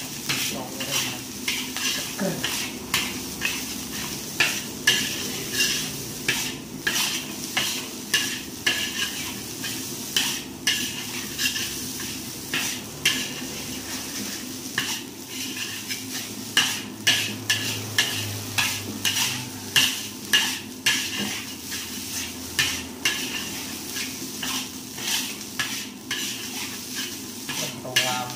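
Metal spatula stirring food in a wok, knocking and scraping on the metal about twice a second over the steady sizzle of frying.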